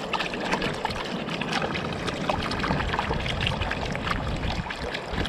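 Water splashing and trickling close by, a steady run of many small splashes and drips.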